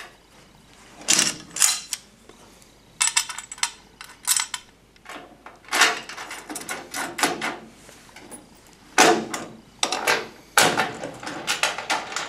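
Metal clinks and clanks of a steel base-plate bracket and zinc-plated 5/16 plate washers being handled and set down on a pickup bed floor, in irregular clusters of sharp knocks. The washers are shims slipped under the base plate to level it and stop it rocking.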